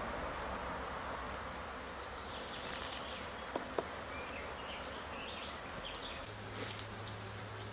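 Honeybees buzzing steadily around an open beehive, with two sharp clicks about three and a half seconds in.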